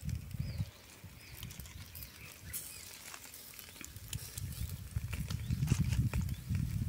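Wind buffeting the microphone, a low uneven rumble that grows stronger about halfway through, over scattered light crackles from the charcoal fire grilling the chicken.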